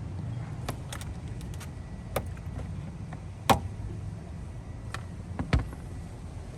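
Plastic trim clips and covers in a car's trunk being pushed and pried off with a flathead screwdriver: a series of sharp clicks and knocks, the loudest about halfway through, over a low steady hum.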